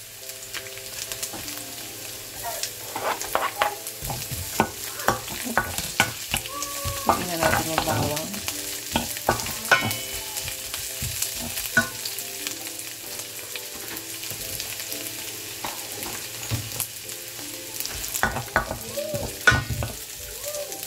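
Sliced onions sizzling as they fry in olive oil in a stainless steel pan, with a wooden spoon scraping and tapping against the pan now and then as they are stirred.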